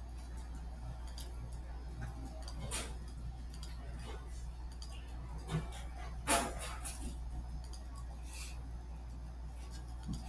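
Room tone with a steady low hum and scattered light clicks and taps, the loudest a short tap about six seconds in.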